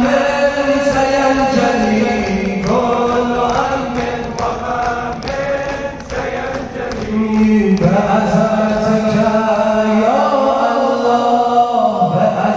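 A noha (Shia mourning chant) sung melodically with long held notes that slide up and down over a steady sustained drone. The sound dips in level about halfway through, then swells back.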